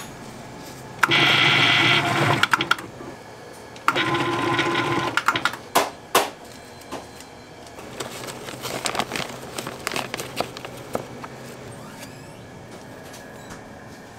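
A small motor-driven machine runs in two short bursts of about a second each. Several sharp clicks and light clattering follow.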